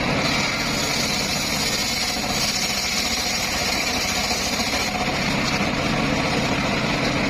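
Engine-driven homemade circular sawmill running steadily, with a higher hiss over the engine hum that eases about five seconds in.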